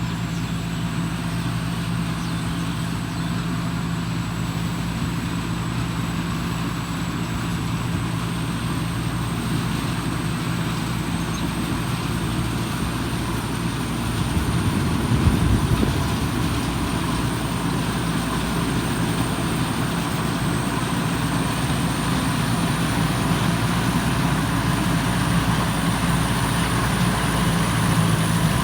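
Combine harvester's engine running steadily, with a thin high whine above it that rises slightly in pitch; it swells briefly about halfway through.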